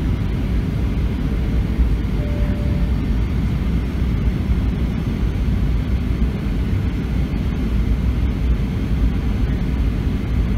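Steady cabin noise inside a Boeing 737-700 airliner: the low rumble of its CFM56-7B turbofan engines blended with rushing airflow, even and unchanging.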